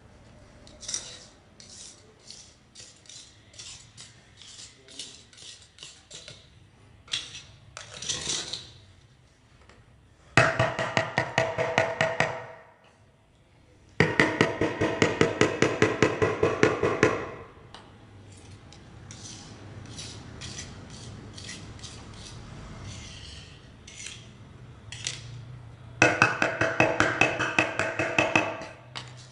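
Hard taps on ceramic floor tiles: scattered single taps at first, then three runs of rapid, evenly spaced strikes lasting a few seconds each, with a ringing tone.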